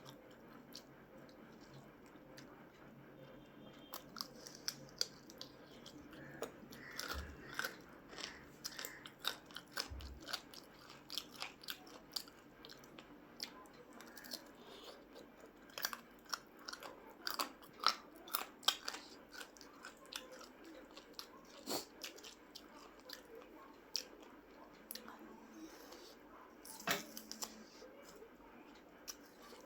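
Close-up chewing and eating mouth sounds, with irregular small crunches and wet clicks.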